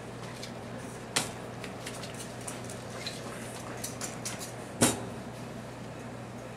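Ceramic dinner plates being picked up and set down. There are two sharp clatters, about a second in and near five seconds, with lighter ticks and knocks between, over a steady low hum.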